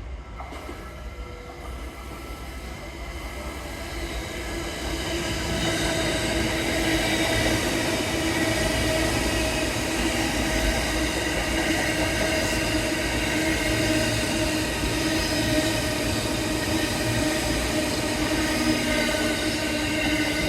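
Loud, steady droning from equipment under a stopped Chuo Line E233-series electric train car: several held tones, from a low hum up to a high whine. It swells over the first several seconds and then holds steady. The exact under-floor machine making it is not identified, and the sound was taken for an abnormal noise.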